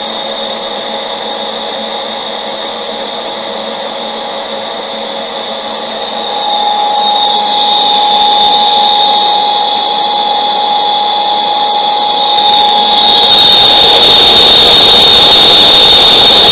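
Deckel FP3 toolroom milling machine running, a steady mechanical whine with several held tones. It grows louder about halfway through and again near the end.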